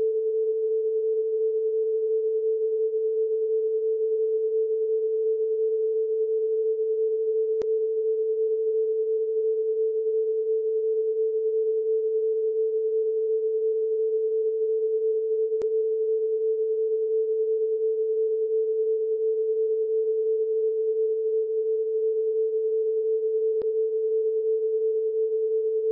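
Test-card tone: a single steady electronic tone held at one pitch without change. It is broken only by three faint clicks, about eight seconds apart.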